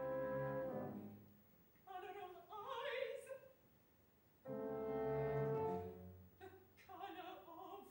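Operatic soprano singing short, dramatic phrases in English, alternating with two long held chords from the accompaniment.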